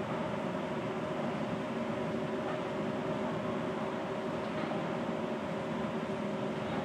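A steady mechanical hum over a hiss, holding several even tones without change.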